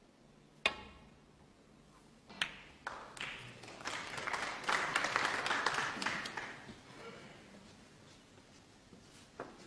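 A snooker cue strikes the cue ball with a sharp click; about two seconds later the cue ball clicks into the blue. The audience then applauds, swelling and fading over about three seconds, and a faint ball click comes near the end.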